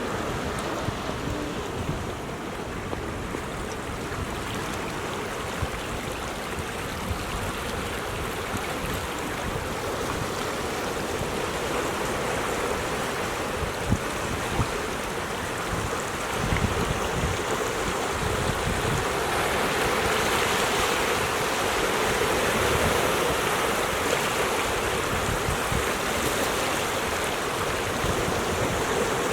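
Ocean surf washing against a rocky shore: a continuous rush of water that swells a little louder past the halfway point, with wind buffeting the microphone.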